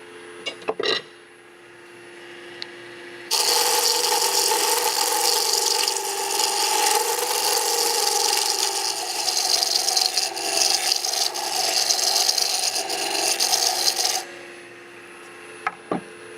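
Wood lathe running with spindle stock spinning between centers, then from about three seconds in a turning chisel cuts into the spinning wood for about eleven seconds, a loud scraping hiss, before lifting off and leaving only the lathe's hum. It is a sizing cut made in at a marked line, taking the spindle down toward a set diameter. A few light clicks come near the start and again near the end.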